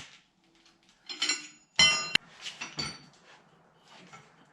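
Metal hand tools clinking against each other: two sharp, ringing clinks about one and two seconds in, then a few lighter taps.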